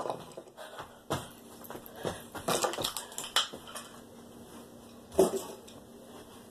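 Scattered clicks and clatter of metal kitchen utensils being handled, with one short yelp about five seconds in.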